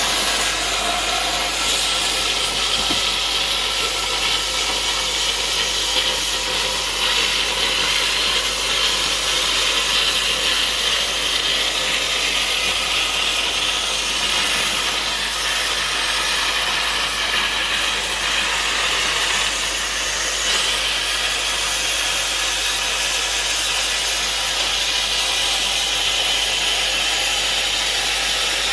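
Plasma cutter torch cutting metal: a loud, steady hiss that holds evenly throughout.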